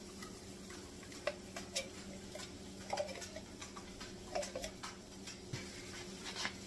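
A spatula scraping condensed cream of chicken soup out of a tin can: scattered clicks and scrapes against the can's metal, with a couple of soft wet plops about three and four and a half seconds in as globs of soup drop into the pan of turkey.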